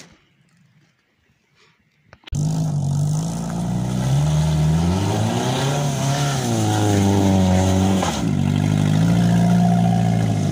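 Toyota Camry's engine running and revving. It starts abruptly after about two seconds of near quiet; the pitch climbs and falls back around the middle, then holds with smaller rises and dips.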